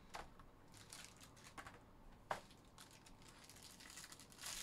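Faint crinkling and tearing of a foil-wrapped 2020-21 Panini Obsidian trading-card pack as it is handled and opened, with a single sharp click about two seconds in and a louder crinkle near the end.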